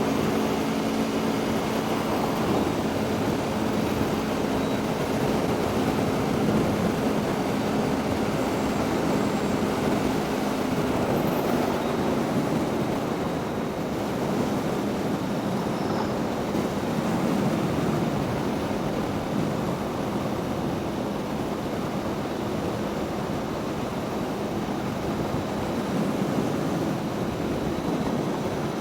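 Onboard sound of a motorcycle at riding speed: a steady wind rush over the microphone, with a faint, steady engine tone under it in the first dozen seconds that then sinks into the wind noise.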